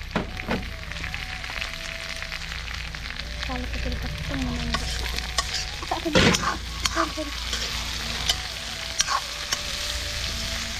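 Chicken, onion and tomato sizzling in a metal wok over a wood fire while a steel ladle stirs them, scraping and clicking against the pan, with the loudest scrape about six seconds in.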